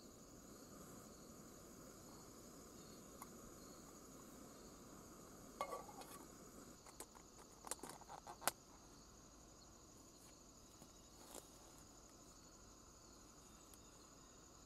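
Faint steady high-pitched drone of night insects, with a cluster of sharp clicks and knocks about halfway through and one more a little later.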